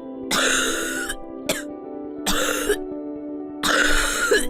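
A person giving a productive cough, the chesty cough of phlegm in the airways, four times: three long coughs and a short one, over steady background music.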